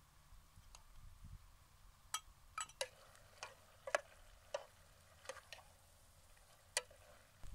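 A metal spoon clinking and scraping against a copper pot as its contents are stirred: about nine sharp, irregularly spaced clicks, starting about two seconds in.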